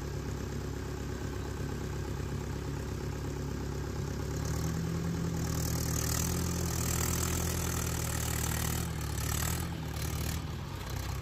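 Heavy diesel machinery engine running steadily, then working harder and louder from about four seconds in until near the end as the mired tractor is hauled through the mud.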